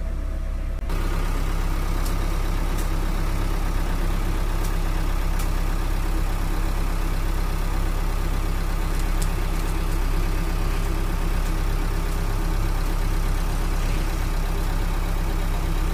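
JCB backhoe loader's diesel engine running steadily, stepping louder about a second in, with a few faint clicks over it.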